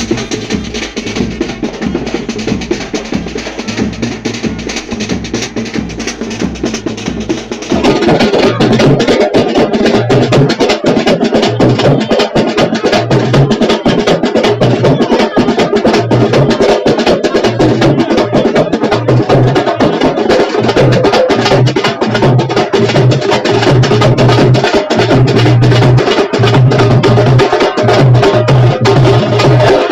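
Fast, dense percussion music with rapid drum strikes, becoming louder and fuller about eight seconds in.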